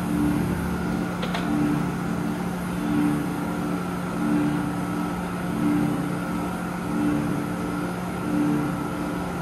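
110-ton Aida NC1-110 gap-frame mechanical punch press running in continuous mode. The ram cycles evenly about once every 1.3 seconds, roughly 45 strokes a minute, over a steady motor and flywheel hum. A single sharp click comes about a second in.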